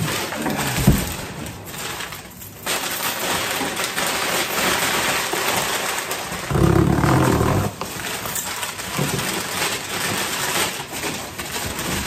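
Crumpled paper packing rustling and crackling as it is pulled out of cardboard boxes. About halfway through there is a louder low sound lasting about a second.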